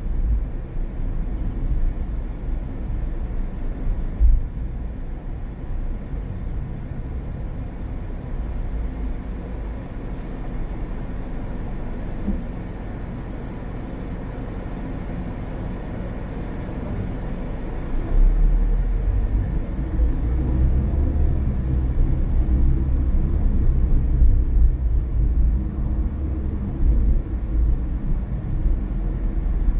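Car driving along a road: steady low rumble of tyres and engine, with a single thump about four seconds in. The rumble grows louder about eighteen seconds in.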